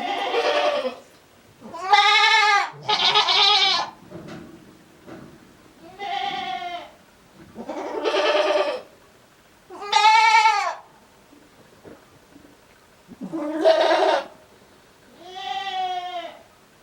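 Male goat bleating over and over in a strange voice: about eight drawn-out calls of around a second each, a second or two apart.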